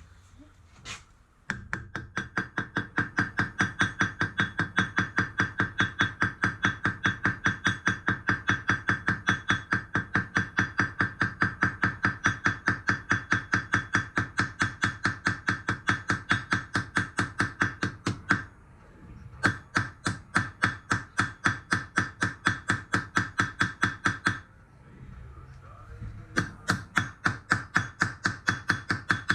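Hammer blows on a rivet set, peening rivets through a steel breastplate: rapid, even strikes about four or five a second, each with a bright metallic ring. The hammering comes in three runs, stopping briefly twice.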